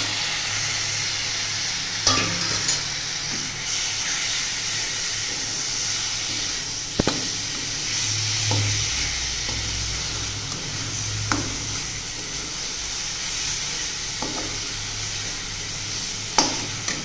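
Ground tomato sizzling as it fries in oil and spice masala in a kadai, stirred with a spatula. A few sharp knocks of the spatula against the pan sound over the steady sizzle.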